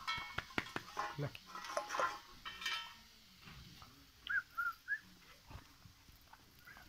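Bhotia dog eating from a steel bowl: irregular clicks and knocks of the bowl and its chain for about three seconds, then it stops. Three short high chirps follow a little over a second later.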